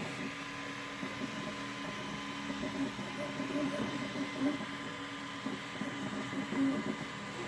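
Ultimaker 3D printer running a print, its stepper motors whirring and changing pitch as the print head moves, over a steady hum.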